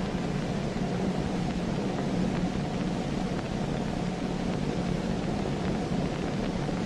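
Steady drone of propeller aircraft engines with a constant low hum under an even hiss.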